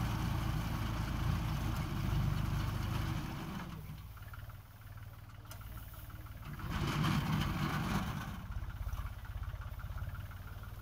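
Tractor's diesel engine running as it drives a mounted paddy reaper through the rice field. It is strongest for the first three seconds, drops away around four seconds, and swells again around seven seconds.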